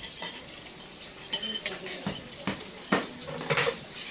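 Tableware clattering during a meal: scattered clinks and knocks of plates and utensils, about half a dozen sharp ones, loudest near the end.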